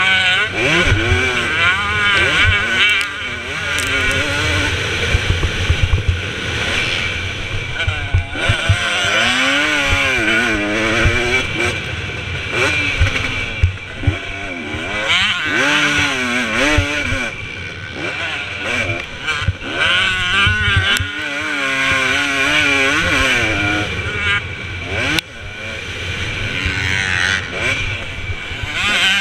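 2017 KTM 250 SX two-stroke motocross engine under race riding, revving up and backing off over and over as the throttle is worked through the gears.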